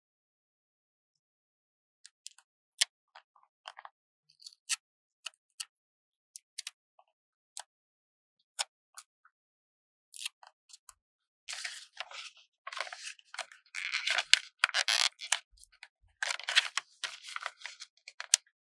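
Paper stickers handled and peeled from their backing sheet. First there are scattered light clicks and ticks, then about eleven seconds in a long run of crackly, crinkling peeling begins.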